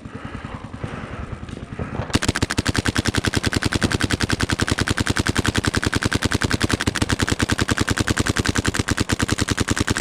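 WGP SuperStock Autococker paintball marker, fitted with a Palmers Ram with quick-exhaust valve and a Shocktech lower tube, firing a long, rapid, even string of shots that starts about two seconds in. Quieter, scattered shots come before it.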